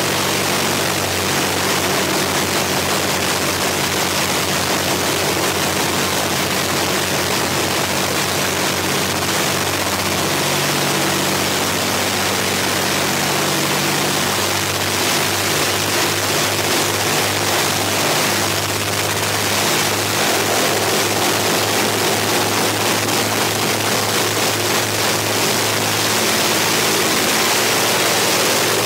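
The twin Rolls-Royce Merlin V-12 engines of a de Havilland Mosquito run steadily on a ground engine run, propellers turning, with a constant rushing propeller noise. The low engine note shifts slightly in pitch a few times.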